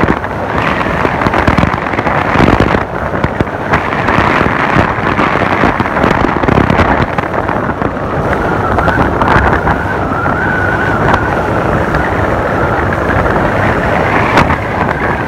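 Wind rush buffeting the microphone of a moving vehicle, mixed with running scooter engine noise.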